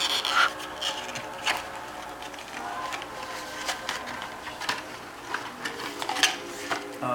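Paper crinkling and rustling as a wrapped present is unwrapped by hand: irregular crackles, none of them steady.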